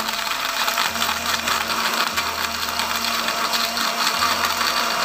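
Countertop electric blender running steadily at full speed, its blades churning coffee, water and ice, with a steady motor hum under the loud whirring.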